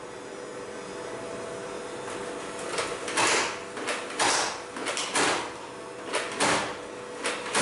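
Nerf foam-dart blaster firing repeatedly: about seven short, sharp, noisy bursts, half a second to a second apart, starting about three seconds in after a faint steady hum.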